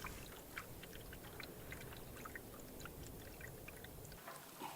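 Faint canoe-paddling water sounds: a paddle dipping with scattered small drips and splashes, over a low rumble that drops away about four seconds in.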